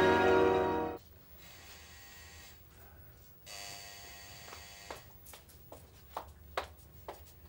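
Tense drama score, ending abruptly about a second in. Then a quiet room, and from about five seconds in a woman's footsteps on a hard floor: sharp heel clicks, about two a second.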